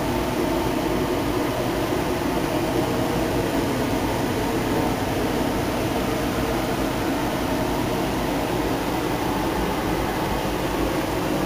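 Electric fans in an indoor grow room running with a steady whir.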